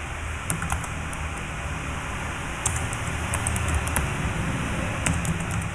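Computer keyboard typing in short clusters of keystrokes, with pauses between them, over a steady low background hum.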